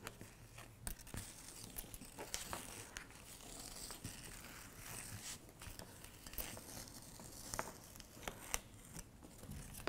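Thin PVC strip being slowly peeled away along its score line from a fabric-laminated lampshade panel: faint crackling and tearing with scattered small clicks, as the plastic parts from the fabric edge a little at a time.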